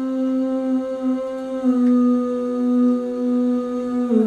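A singer holding one long, steady sung note, a hummed "ooh", that steps down to a lower note near the end, a switch the producer thinks comes a little early.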